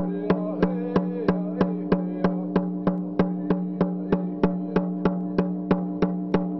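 Single-headed hide hand drum struck with a beater in a steady, even beat of about three strokes a second, each stroke ringing on in a low tone, as the accompaniment of a thank-you song.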